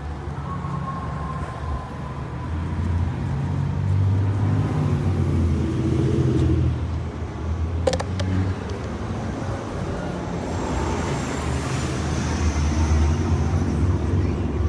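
City street traffic: a steady low rumble of passing vehicles that swells and eases, with one sharp click about eight seconds in.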